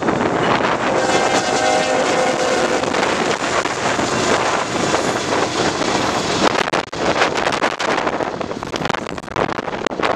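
Strong wind buffeting the microphone, with a CN freight locomotive's horn sounding a steady chord for about two seconds, starting about a second in.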